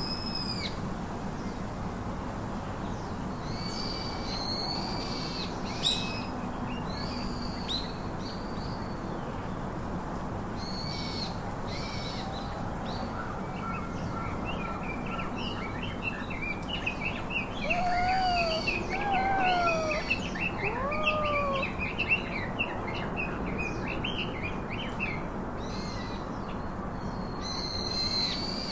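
Birds calling: a short, high, arched call repeated every second or two, with a burst of quick chirping in the middle and a few lower gliding calls.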